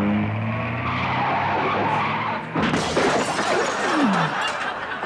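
Car engine revving up, then tyres screeching in a long skid, with a sharp knock about two and a half seconds in.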